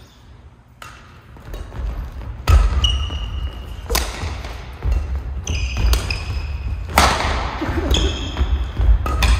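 Badminton rally: sharp racket strikes on the shuttlecock about every second and a half, with shoes squeaking and feet thudding on the wooden court floor between shots.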